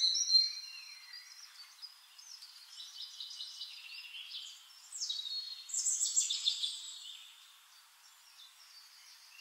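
Birds chirping and singing, many short overlapping whistled calls, loudest at the start and again from about five to seven seconds in, then fading.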